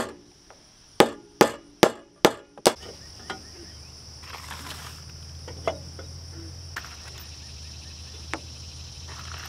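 Claw hammer driving nails through a galvanized steel joist hanger into a wooden beam: about six quick, sharp blows in the first three seconds. Then a steady high insect drone over a low hum, with a few light clicks of the metal hanger being handled.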